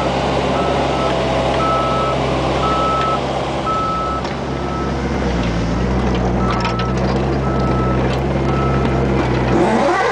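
Bobcat 430 ZHS mini excavator's diesel engine running under work while its travel alarm beeps steadily, about one beep every three-quarters of a second. The beeping pauses briefly near the middle as the engine note shifts, and a rising whine comes in right at the end.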